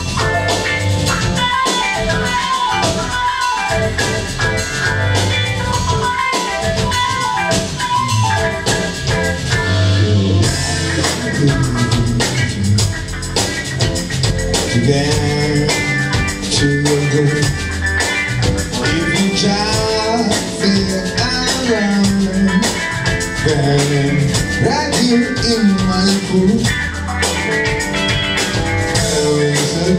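A live band playing on stage: electric guitars, a drum kit and a keyboard, with guitar lines bending in pitch over a steady beat.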